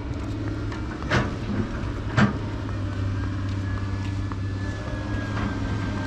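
Steady low engine rumble, with two short knocks about a second in and again a second later. A faint high whine comes in about halfway through.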